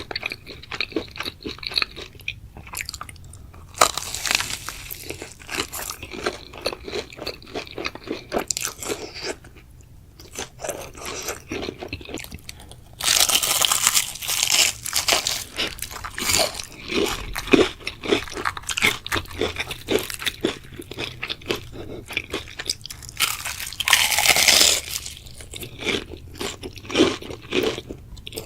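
Close-miked eating: a person chewing and crunching food with many small wet clicks. There are three louder crunchy stretches: about four seconds in, around the middle, and near the end.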